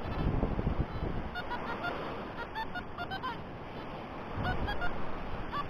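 Wind buffeting the microphone, in gusts at the start and again about four and a half seconds in, with short high beeps from a metal detector scattered throughout as it picks up targets.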